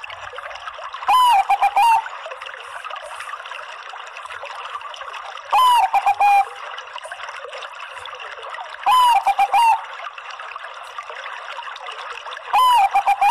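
Bangkok-line zebra dove (perkutut bangkok) cooing four times at a few seconds' spacing. Each call is a short rising-then-falling note followed by a quick run of shorter notes. Under the calls runs a steady hiss like trickling water.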